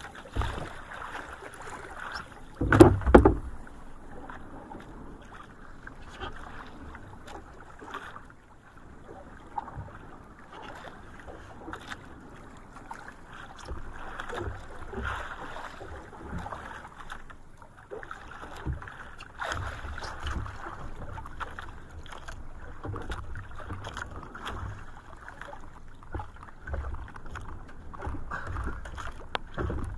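Water rushing and slapping along the hull of a small outrigger fishing boat under way on choppy sea, with wind rumbling on the microphone. A single loud thump comes about three seconds in.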